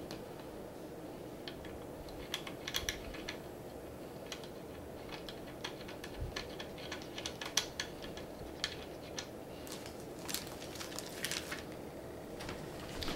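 Light, irregular clicks and taps of small screws, a hand tool and the wooden frame being handled while the handlebar of a wooden balance bike is screwed on.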